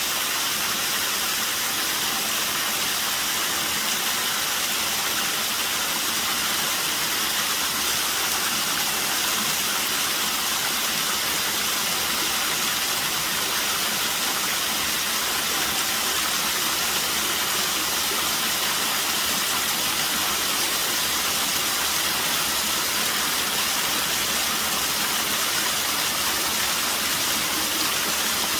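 Small waterfall running with a somewhat low flow: a steady, even rush of falling water, bright rather than deep, with no changes.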